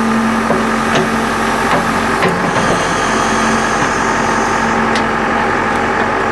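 Backhoe loader's diesel engine running steadily at a constant pitch while its hydraulic arm and bucket are moved, with a few scattered light knocks.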